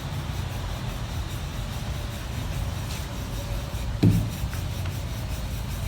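Steady low rumble, with a short falling vocal sound about four seconds in.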